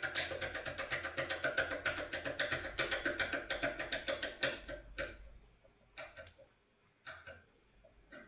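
Foil impression pick being worked in a TESA ST6 cylinder lock: a fast run of metallic clicks, about eight a second, as the tool is jerked against the pins. The clicking stops about five seconds in, followed by a few single clicks.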